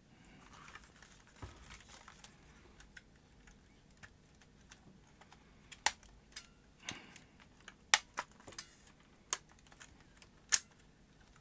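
Small plastic clicks and taps from a partly dismantled Canon UC-X10 camcorder being handled and prised at by hand, scattered and irregular, with several sharper clicks from about six seconds in.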